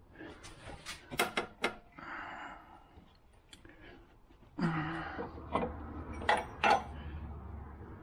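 Metal tools and parts being handled: a series of sharp clinks and knocks, with short scraping sounds between them.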